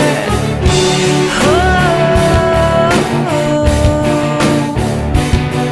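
Rock music with electric guitar and a steady beat, a sustained lead line bending up and down in pitch.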